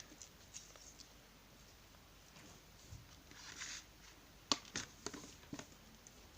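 Faint handling noise: a soft rustle about three and a half seconds in, then a few light clicks and taps.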